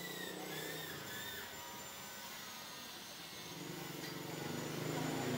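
A motor vehicle engine running close by, its hum growing louder through the second half, over steady background noise. Faint high wavering tones sound in the first second or so.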